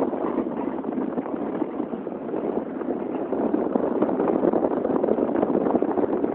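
Ice skate blades scraping and gliding over natural lake ice: a steady, rough, crackly hiss, mixed with wind on the microphone.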